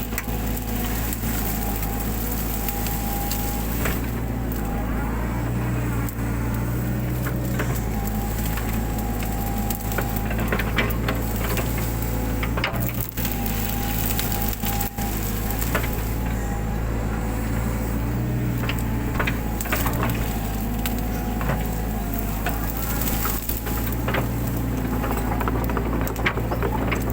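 Mini excavator's diesel engine running steadily under load, with a hydraulic whine that comes and goes as the arm works. Over it, repeated cracking and snapping of brush and woody stems being crushed.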